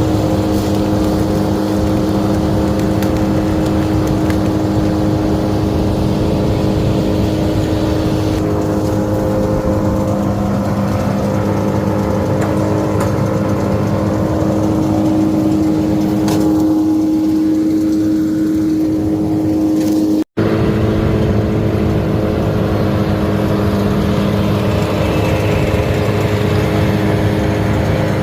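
Small gasoline engine running at a steady, high speed, with a sudden break for an instant about two-thirds of the way through.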